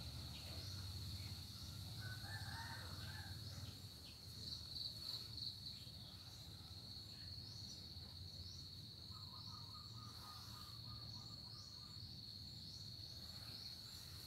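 Faint, steady, high-pitched insect trill, briefly louder and pulsing about four to six seconds in. A few short chirps and a low hum run underneath.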